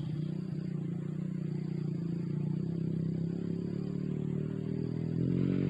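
A small engine running with a steady low hum that grows louder about five seconds in.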